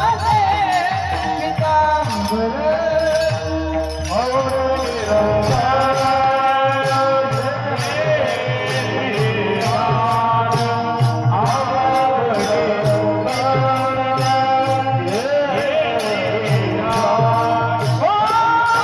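Marathi devotional kirtan singing: a solo voice carries a slow melody with long sliding notes. Small hand cymbals keep a quick, even beat with a drum underneath.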